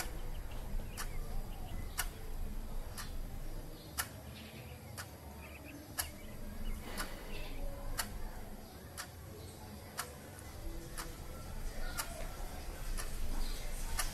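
Wall clock ticking steadily, about once a second.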